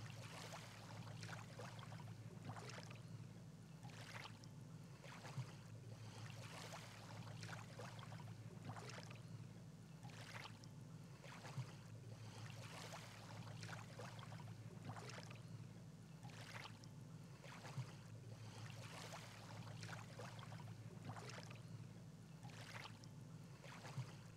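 Faint water swishing in regular strokes about every second and a half, over a steady low hum, with a few small clicks.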